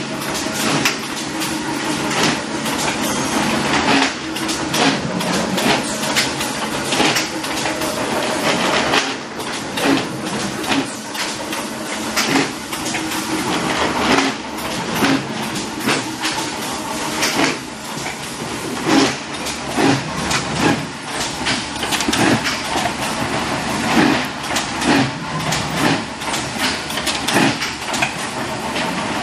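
Magellan corrugated boxmaker running, giving a steady mechanical noise with frequent sharp knocks and clacks. Later on the knocks fall into a rough beat a little under once a second.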